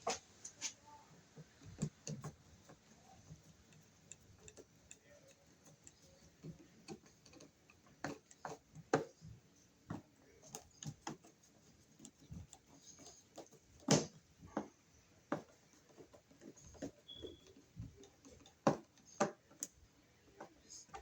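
Scattered small clicks, taps and knocks of hand work on a wall receptacle, with a screwdriver and the outlet's metal yoke against the electrical box. The clicks are irregular, with one louder knock about two-thirds of the way through.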